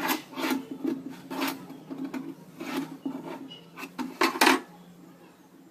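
Plywood and a metal drawer slide scraping and knocking against a plywood table top in a run of short, irregular strokes, the loudest about four seconds in, then stopping. A steady low hum underneath.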